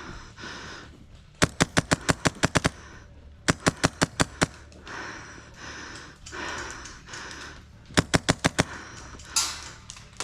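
Airsoft rifle firing three quick bursts of sharp shots, about seven shots a second, the first burst the longest.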